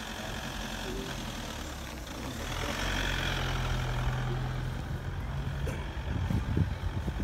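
An engine idling with a steady low hum that grows a little louder about two and a half seconds in. A few low thumps come near the end.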